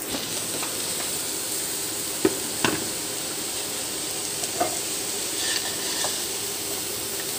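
Shredded cabbage and capsicum sizzling steadily in a metal frying pan while a wooden spatula stirs and turns them, with a few sharp knocks of the spatula on the pan. The vegetables are giving off water, which is being fried off.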